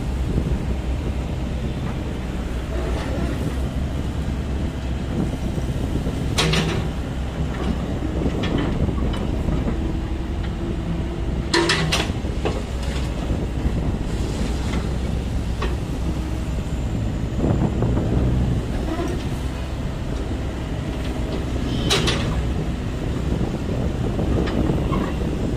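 Hyundai wheeled excavator's diesel engine running steadily under load as it digs and swings its bucket through a pile of sand and gravel. A few sharp metallic clanks come from the bucket and boom working.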